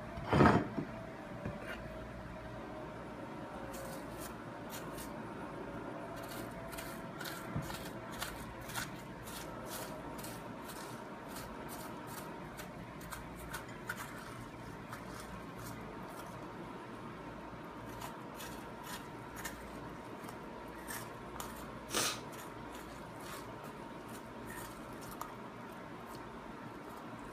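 A fork scraping and raking the flesh of a baked spaghetti squash out of its skin into strands, a run of many short, light scrapes and clicks. Two louder knocks stand out, one just after the start and one about three-quarters of the way through.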